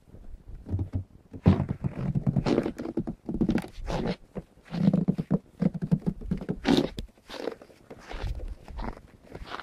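Schapendoes puppies scuffling and playing in fresh snow: irregular thumps and scrambling footfalls that come in quick clusters.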